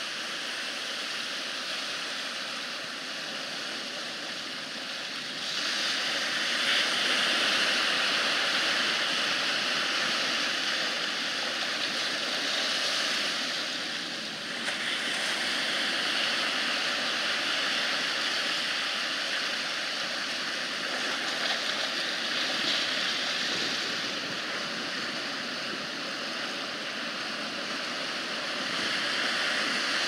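Rough sea surf breaking and churning against a rocky shore: a continuous rushing wash. It swells louder about five seconds in, eases briefly in the middle and builds again near the end as bigger waves come in.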